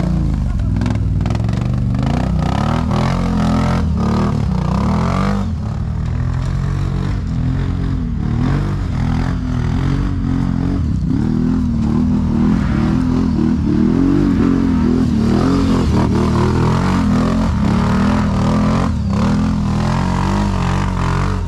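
ATV engine revving up and down again and again under load on a steep climb, with clattering and knocking of the machine over rocks and roots.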